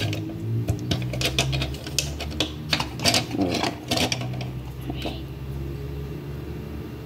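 Hard plastic marble-run parts (GraviTrax pieces) clicking and clacking against each other as they are handled and fitted together, a quick run of small clicks that thins out in the last couple of seconds, over a low steady hum.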